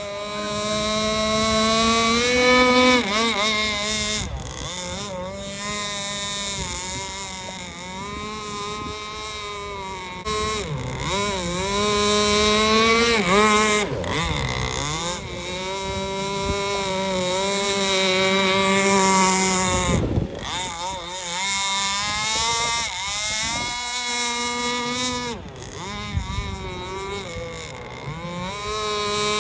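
A 26cc two-stroke gasoline engine on a 48-inch Pro Boat RC speedboat running at speed. Its high engine note rises and falls again and again as the throttle changes and the boat makes its passes.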